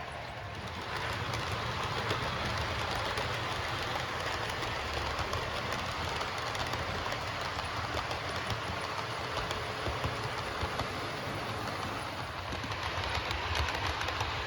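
OO gauge model train, an Accurascale TPE Mk5 coach rake behind a locomotive, running on layout track: a steady motor hum with fine clicking from the wheels over the rail. It gets louder about a second in.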